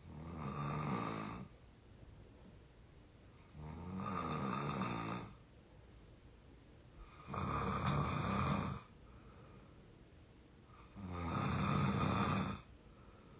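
A young adult snoring in deep sleep: four snores at an even pace, about one every three and a half seconds, each lasting about a second and a half, with quiet breathing between them.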